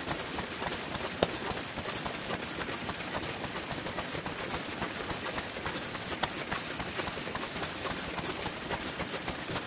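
Several old single-cylinder Japanese stationary kerosene engines running together, their overlapping firing strokes and valve clicks making a dense, uneven patter, with a sharper crack about a second in and again about six seconds in.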